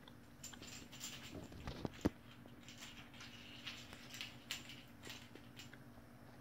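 Kittens playing on a bare concrete floor: faint scattered patters, scrapes and light ticks of paws pouncing and batting at small things, with one sharper knock about two seconds in, over a low steady hum.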